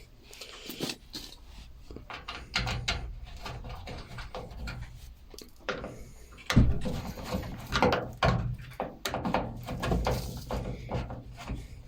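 Irregular knocks, clicks and rattles of washing machine parts and tools being handled during reassembly, over a faint steady low hum.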